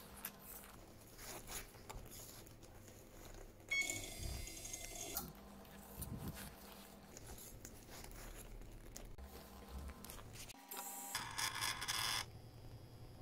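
Faint scraping and handling noises from a bench hardness tester as its elevating base is turned by hand, with sudden shifts in the background noise.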